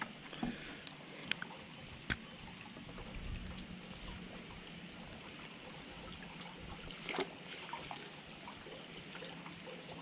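Light rain falling on water and a wet wooden boardwalk, a steady soft patter, with a few sharp clicks and knocks near the start, about two seconds in and about seven seconds in.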